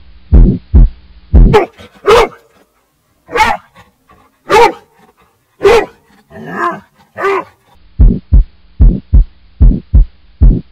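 A slow, heartbeat-like double thump, then a black Labrador rubble-search dog barking about six times. After the barks the double thump returns a little faster. The barking is the search dog's bark indication on finding a buried person.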